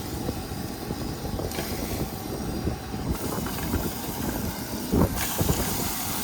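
Thin-sliced fajita meat sizzling in a hot pan with no oil, over a steady low rumble. The sizzle swells twice, the second time right after a knock about five seconds in as more meat goes onto the pan.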